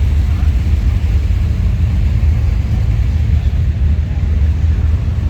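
Steady low rumble of car engines and exhaust on a busy car-show street, with no single car standing out.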